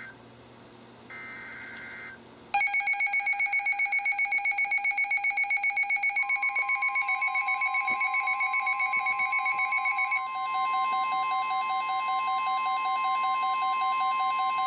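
The last warbling data bursts of a NOAA Weather Radio SAME alert header, then several weather radio receivers going off at once with loud, rapidly pulsing alert beeps at different pitches. A few seconds later the station's steady single-pitch warning alarm tone joins them.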